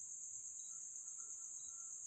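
Faint night insect chorus: a steady high-pitched drone, with a short, higher chirp about once a second.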